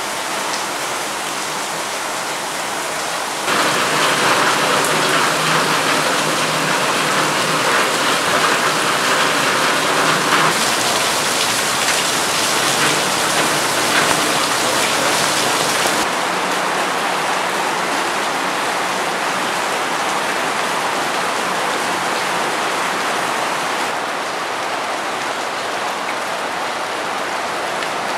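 Steady rain falling on pavement and roofs. The sound jumps abruptly in loudness and tone a few times, and is loudest for a stretch in the first half.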